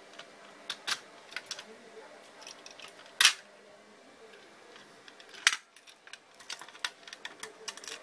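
A small metal key working the lock of a fire alarm pull station, with scattered light clicks and key jingling and two sharp clicks about three and five and a half seconds in.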